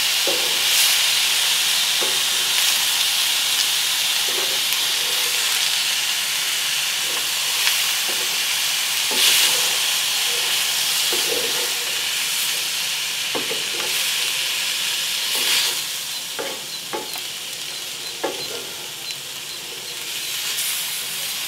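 Cubed pork neck searing in a hot cast-iron skillet, a steady sizzle, as the paprika powder dusted over it toasts in the fat. A wooden spatula scrapes and turns the meat every second or so; the sizzle eases a little near the end.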